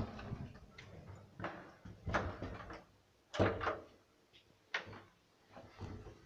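Doors of an old Transporta passenger lift being handled and shut: a series of separate clunks and knocks, the loudest about three and a half seconds in.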